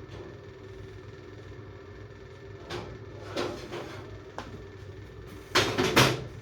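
Household knocks and bumps, like doors or objects being handled, over a steady low hum: a few light knocks in the middle, then a louder double bang near the end.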